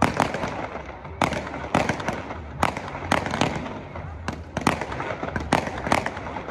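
Fireworks display: aerial shells bursting overhead, about a dozen sharp bangs at uneven intervals, some close together in quick pairs.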